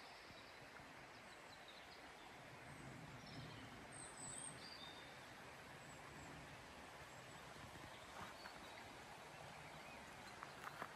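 Faint, steady outdoor hiss with a few short bird chirps a few seconds in, and a couple of soft clicks near the end.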